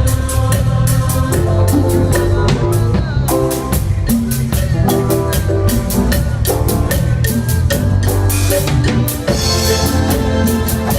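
Band playing an instrumental cumbia, with a drum kit keeping a steady fast beat under a sustained melody line.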